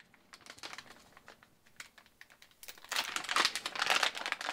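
Plastic static-shielding bag crinkling as it is handled and opened to get the controller board out: faint rustling at first, then loud, dense crinkling from about three seconds in.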